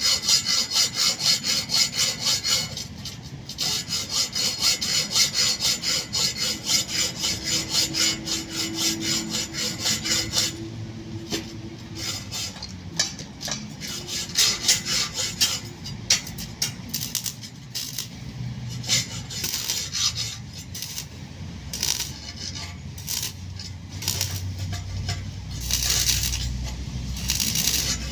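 Hand saw cutting through wood in quick, regular strokes; after about ten seconds the strokes grow uneven and broken.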